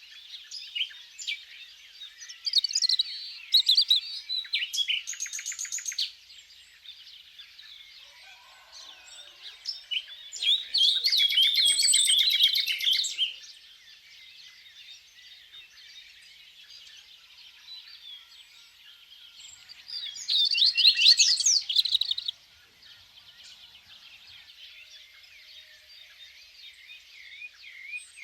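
Songbirds singing: a steady background of high chirps with three louder bouts of song, the middle one a fast trill.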